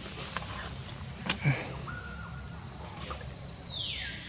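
Steady high-pitched insect chorus outdoors, with a brief soft knock a little over a second in and a quick falling whistled call near the end.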